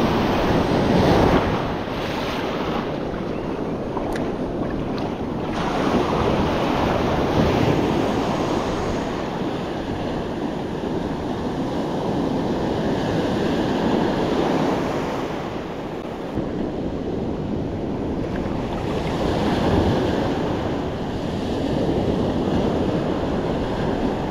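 Ocean surf breaking and washing up the beach, swelling and easing every few seconds, with wind buffeting the microphone.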